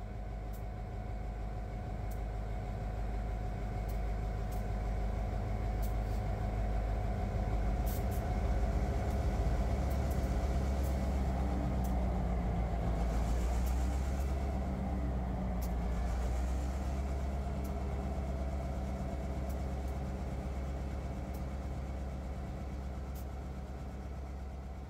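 Diesel locomotives pushing a Union Pacific Jordan snow spreader, their engines running with a steady low drone that swells to its loudest about halfway through as the train passes, then fades. A few faint clicks sound over it.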